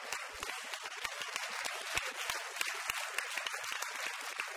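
Church congregation applauding: many hands clapping in a dense, steady patter.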